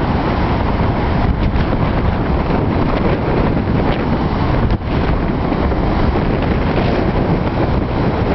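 Strong wind buffeting the microphone in a loud, steady rumble over the rush of storm waves breaking against harbour walls.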